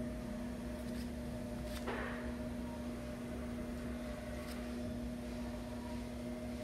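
Steady electric hum of an appliance motor over a low rumble, with a few faint clicks and a brief rustle about two seconds in.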